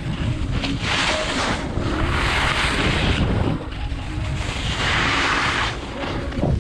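Wind buffeting an action camera's microphone at skiing speed, with three stretches of hissing as skis scrape across the snow in turns.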